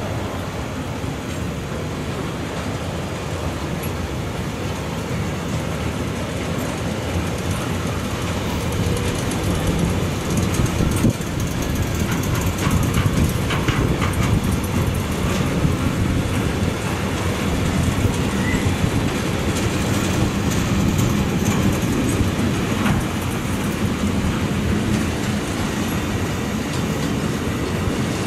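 Freight train of loaded tank wagons rolling on the rails: a steady wheel-and-rail rumble with occasional clicks over the rail joints. It grows a little louder about a third of the way in.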